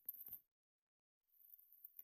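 Near silence: a few very faint ticks in the first half second, then dead silence.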